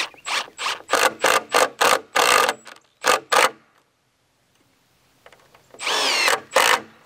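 Cordless impact driver driving a screw into a pine 2x4 in short pulses, about ten quick bursts in the first three and a half seconds, then a pause and two longer runs near the end with the motor's pitch rising and falling.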